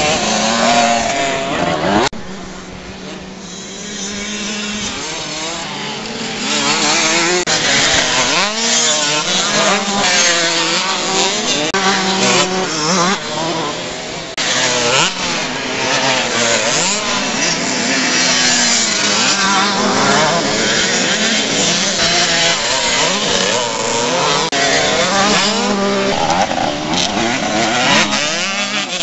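Youth motocross bikes racing on a dirt track, several small engines revving up and dropping off again and again as they pass.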